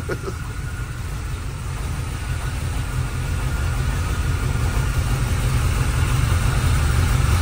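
GM Performance crate 350 small-block V8 idling with a steady, deep rumble, still cold after a cold start, its exhaust running through Thrush welded mufflers.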